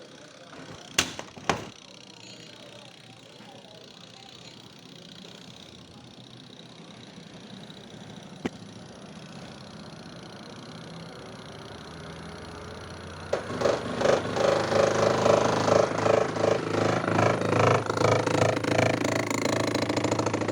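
Spin-dry tub of a semi-automatic twin-tub washing machine: two clicks near the start, then a faint hum that slowly grows as the tub speeds up. About two-thirds in, a loud, fast rhythmic knocking breaks out. This is the tub striking inside the machine because one of its shock absorbers is missing its screw.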